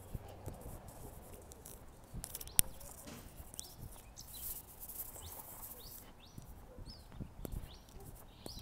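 Scattered bird chirps over a walker's footsteps on the street, with one sharp click about two and a half seconds in.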